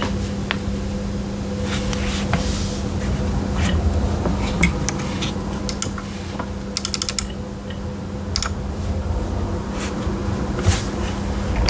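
Scattered single clicks and a quick run of about six clicks near the middle, over a steady low electrical hum: light handling or a few stray key presses on the keyboard before typing starts.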